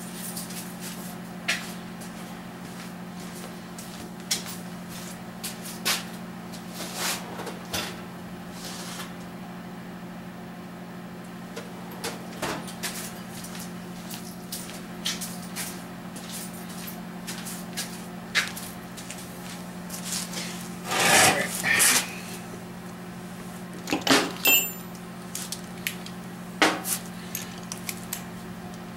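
Scattered clicks, clinks and knocks of tools being handled, the loudest a few knocks about 21 and 24 seconds in, over a steady electrical hum.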